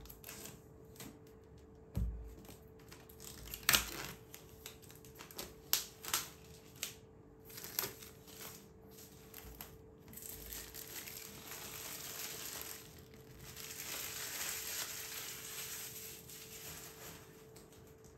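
Phone packaging being handled: a string of sharp clicks and taps, then, from about ten seconds in, several seconds of steady rustling and crinkling of the wrapping.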